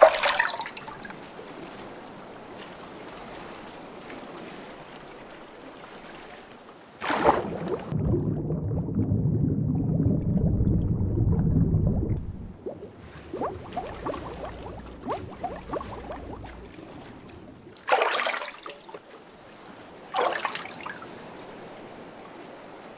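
Water sound effects for a cartoon: splashes and dripping, trickling water. A sharp splash comes several seconds in and is followed by a low rumble lasting several seconds, then faint trickling, then two more sharp splashes near the end.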